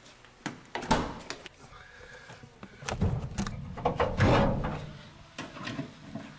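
Vintage Opel's door and bonnet latch being worked to pop the hood: a run of clicks and clunks, with heavy thuds about three and four seconds in.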